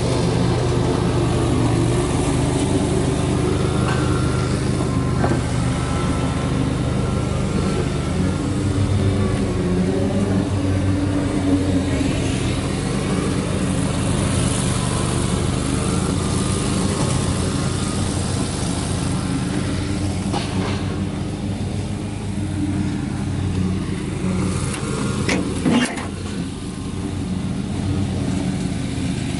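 Ford F-550 Super Duty truck's engine idling steadily, with a couple of sharp clicks near the end.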